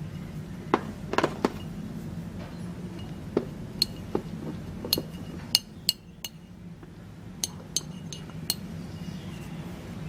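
Metal tools and parts clinking and tapping in scattered sharp clicks, over a steady low hum.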